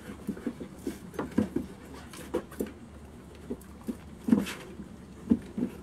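A dog panting in short, irregular breaths with some soft whimpering noises, one louder breath about four and a half seconds in.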